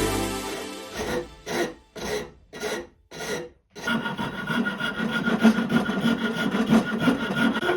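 Shinto saw rasp scraping across bird cherry wood: about five separate strokes, then a faster run of continuous rasping for the last few seconds.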